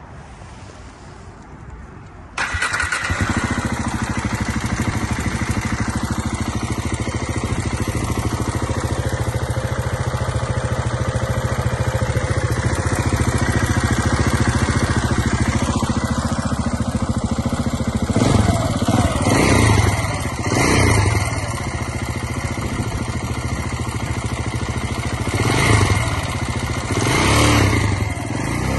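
KTM 690 Enduro R's single-cylinder four-stroke engine starting about two seconds in and idling, with a ticking from the left side of the engine that the owner cannot trace: valve clearance is in spec, the rocker arm rollers seem fine, and a manual cam chain tensioner made no difference. The throttle is blipped several times in the last ten seconds.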